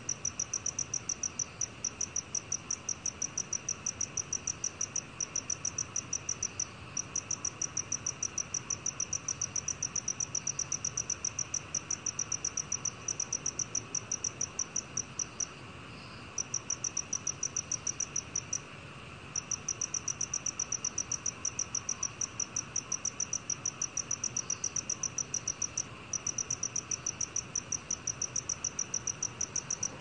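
Black cricket calling at 20 °C: a rapid, even train of high-pitched chirps, broken by a few short pauses, the longest near the middle.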